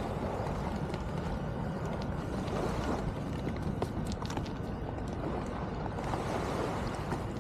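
Steady low rumble of wind buffeting the microphone, with a few faint small clicks scattered through it.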